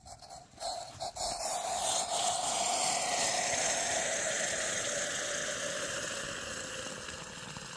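Hot coffee being poured through a strainer into a container: a steady splashing hiss that starts about half a second in and slowly fades near the end.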